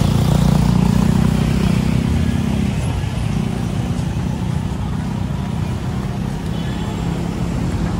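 Street traffic passing close: motorcycle engines running loudest over the first couple of seconds, then easing as cars go by, with the hiss of tyres on a wet road.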